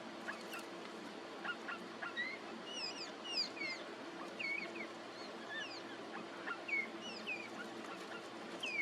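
Wild birds calling: a run of short, sliding chirps, some rising and some falling, repeated irregularly throughout, over a steady outdoor background with a faint low hum.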